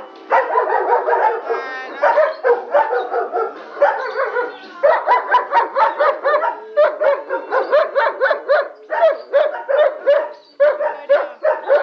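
Dog yipping and whining in play, a dense run of short high-pitched calls that settles about five seconds in into an even series of two or three a second.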